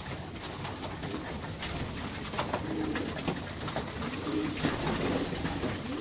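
A flock of young racing pigeons pecking feed off the loft floor, a busy patter of small clicks, with low cooing calls from about halfway through.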